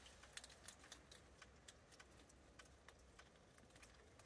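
Near silence: room tone with faint, irregular little ticks scattered through it.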